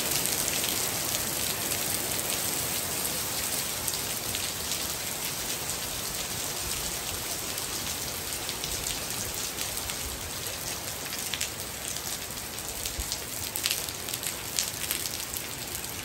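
Heavy rain pouring down onto a paved patio, lawn and swimming pool: a steady hiss with sharp ticks from nearby drops, more of them later on.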